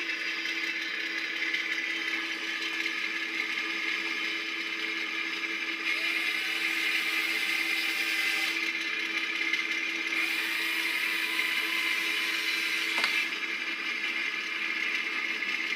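Small electric motors whirring steadily with gear whine. Twice a motor winds up in pitch and holds, with a hiss, about six and about ten seconds in; the second run ends in a click.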